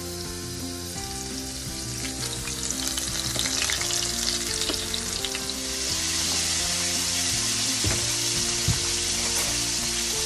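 Chicken pieces frying in hot oil, a steady sizzle that swells louder about six seconds in.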